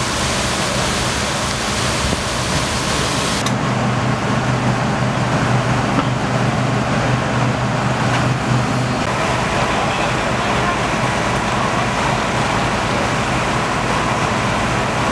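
Fire engines running steadily with a low hum. A loud hiss over the first three seconds cuts off suddenly.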